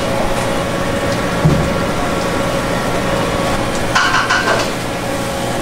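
Steady rushing workshop noise, with a brief wet splashing burst about four seconds in as a metal ladle pours soft bittern-set tofu curds into a cloth-lined press box.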